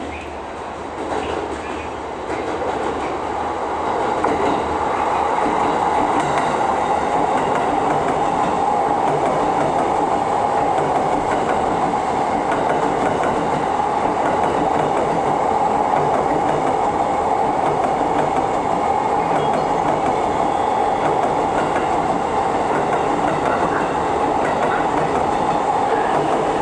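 A JR East E233-3000 series electric commuter train running through at speed, its wheels and motors rising in loudness over the first few seconds as it approaches. After that the running noise holds steady and loud as the long train's cars pass close by.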